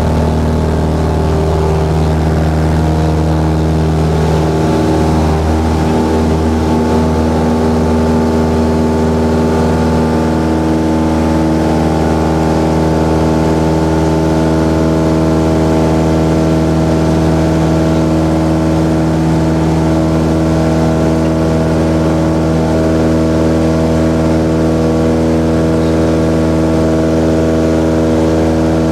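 Single-engine light aircraft's engine and propeller running steadily at take-off power, heard from inside the cockpit, as the plane lifts off from a frozen lake and climbs.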